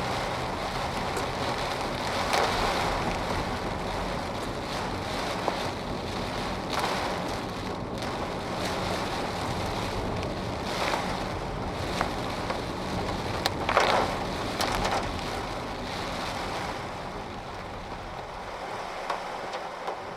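Heavy rain falling steadily, with a few brief louder swells.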